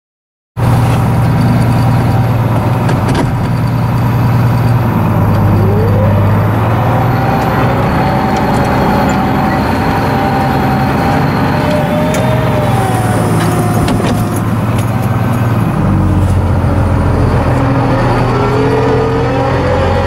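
International Harvester 956 XL tractor's six-cylinder diesel engine running steadily under load while pulling a reversible plough, heard from inside the cab. The sound cuts in abruptly about half a second in, and the engine note drops lower about 16 seconds in.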